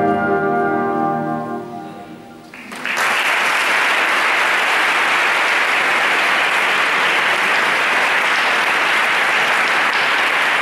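Symphonic band holding its final chord, with the brass prominent, dying away over about two seconds; then audience applause breaks out and goes on steadily.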